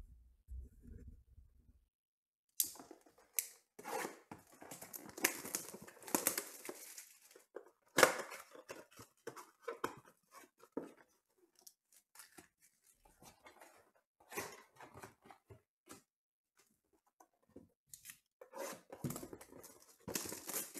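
Cellophane shrink-wrap crinkling and tearing as it is stripped off a trading-card blaster box, with cardboard flaps opened and packs and cards rustled. It starts about two and a half seconds in, runs thickest for several seconds, then comes in shorter crackles.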